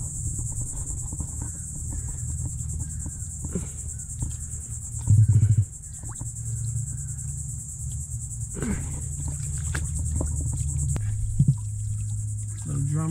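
A steady high-pitched insect drone, like crickets or cicadas, over a low background hum. About five seconds in comes a brief loud low rumble lasting about half a second.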